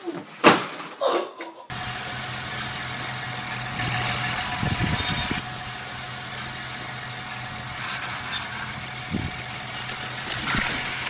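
Two short, loud sounds within the first second and a half, then from about two seconds in the steady drone of a large square baler and its tractor running, with a low hum.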